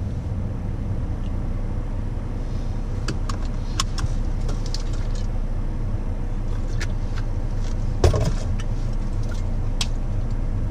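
Car engine idling, a steady low rumble heard from inside the cabin, with scattered light clicks and one louder knock about eight seconds in as a drink bottle and a can are handled.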